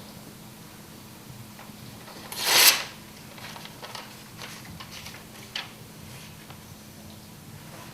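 A brief loud rasping rustle about two and a half seconds in, followed by a few softer rustles and clicks, over a faint steady low hum.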